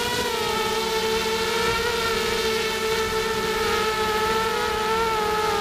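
ZMR250 quadcopter's 2300 kV brushless motors and propellers whining steadily as it flies, heard from its onboard camera, the pitch holding nearly constant with slight wavers.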